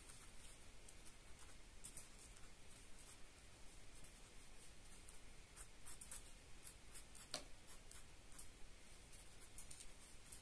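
Faint scratching of a 0.3 mm fineliner pen nib on paper, a run of short, irregular strokes.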